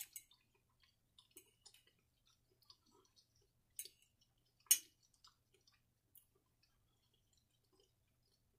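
Quiet chewing and mouth sounds, with a metal fork clicking on a plate a few times. The loudest click comes just under five seconds in.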